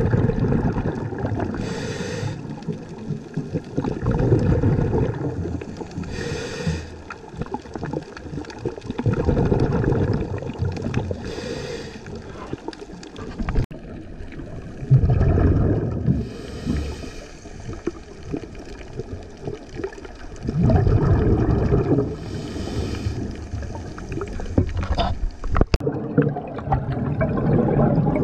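Scuba regulator breathing, heard underwater through the camera housing: a hissing inhale about every five seconds, each followed by a loud, low burst of exhaled bubbles.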